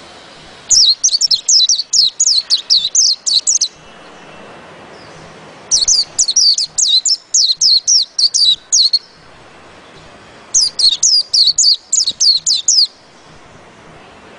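White-eye (pleci) singing in three runs of rapid, high, repeated falling notes, about four notes a second, each run two to three seconds long with short pauses between.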